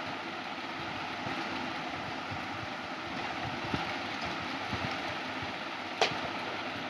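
Steady background hiss and hum with a few faint ticks, and one sharp click about six seconds in.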